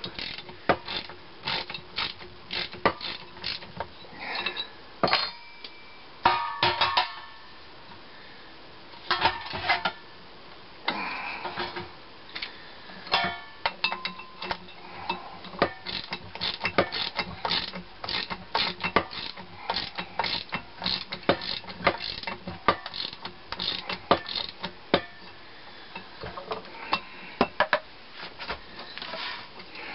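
Hand socket ratchet clicking in quick runs, with scattered clinks of metal tools and parts, as bolts are worked loose during the teardown of a Kohler K181 single-cylinder engine.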